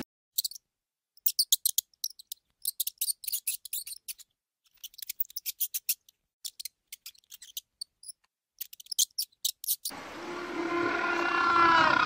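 Pet rat crunching dry food: quick, crisp bites in short clusters with brief silent gaps between. Near the end a louder stretch of pitched, wavering calls takes over.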